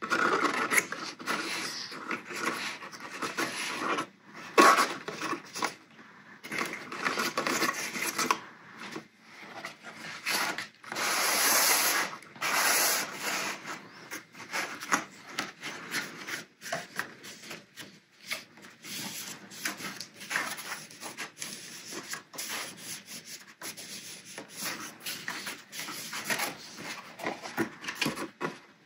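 A red cardstock box being rubbed and pressed by hand along its freshly glued flaps, then handled and folded: irregular scraping and rustling of stiff paper against paper and the scrap-paper mat, with a longer, louder rub about eleven seconds in.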